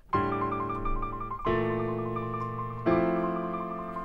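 Background piano music starting up: slow sustained chords, changing about every second and a half.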